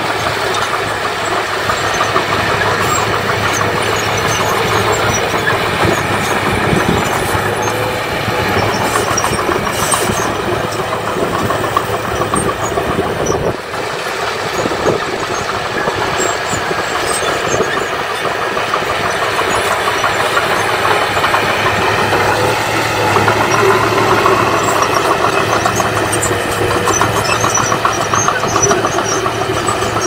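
Small crawler bulldozer's diesel engine running steadily as the dozer pushes rocky soil, with a brief dip about halfway through.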